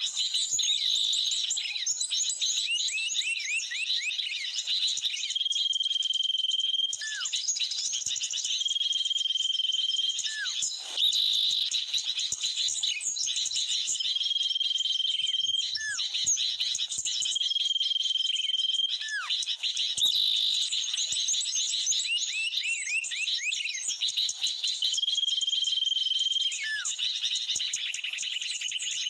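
Looped bird-lure recording of agitated sooty-headed bulbul ('kutilang ribut') calls mixed with small-bird chatter: a dense, continuous stream of high chirps, with a held whistle followed by a short falling note repeating several times.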